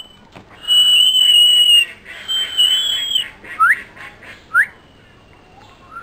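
Pet myna whistling: two long, steady whistles of about a second each, then two short rising whistled notes about a second apart.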